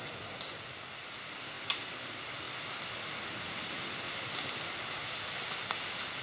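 Steady rushing noise with three faint clicks, part of a recorded song's ambient intro.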